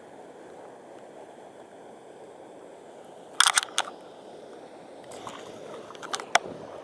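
Steady background hiss, broken by a quick cluster of sharp clicks or knocks about three and a half seconds in and two or three more near the end.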